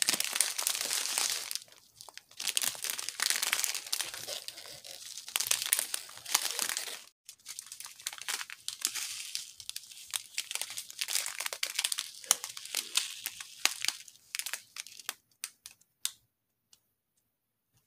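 Small clear plastic bags of square diamond-painting drills crinkling and crackling as they are handled and flipped through one after another, in irregular spells with short pauses. The handling dies away to near silence near the end.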